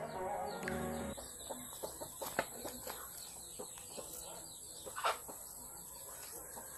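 Background music cuts off about a second in. Then come outdoor sounds: chickens clucking, and scattered small clicks and leaf rustles as chili peppers are picked off the plant, over a steady high hiss.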